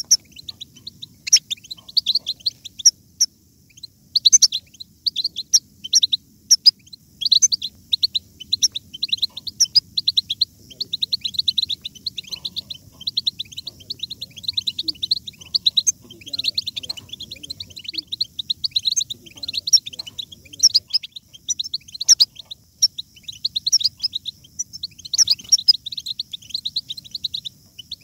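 European goldfinches twittering and singing: quick, near-continuous runs of short, high chirping notes.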